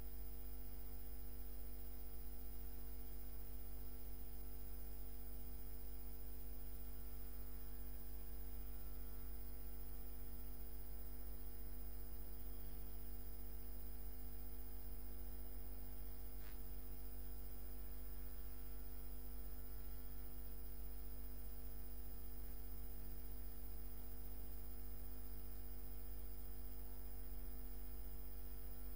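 Steady electrical mains hum with several faint steady tones above it, and one faint click about sixteen seconds in.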